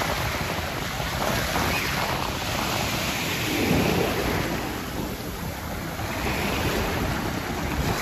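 Small waves breaking and washing up the sand in a steady rush of surf.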